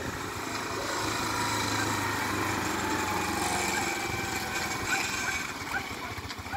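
Small 150 cc ATV engine running as the quad rides past at low speed, growing louder over the first couple of seconds and then easing off slightly.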